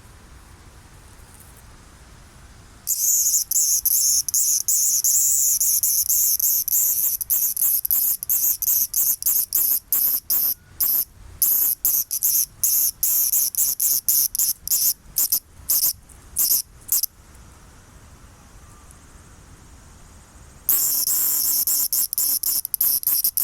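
A cicada calling: a loud, high buzz that starts about three seconds in, breaks up into rapid pulses, stops around seventeen seconds, then starts again about three seconds later.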